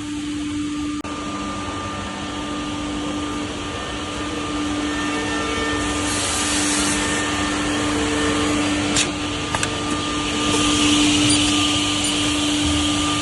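Nanxing NB6JQF automatic edge banding machine running: a steady motor hum with a constant tone under a broad hiss. A louder high-pitched hiss comes in about six seconds in and again near eleven seconds, and a few sharp clicks sound around nine to ten seconds.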